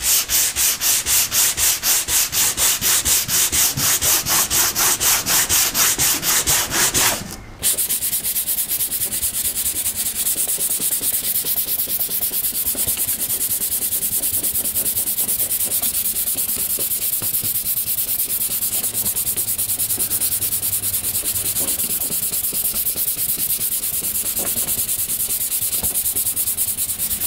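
Hand sanding block with 220-grit paper scraping back glaze filler over small dents on a car hood, in quick rhythmic back-and-forth strokes, block-sanding the filler flat so it stays only in the dents. About seven seconds in, the strokes give way to a steadier, denser rasp.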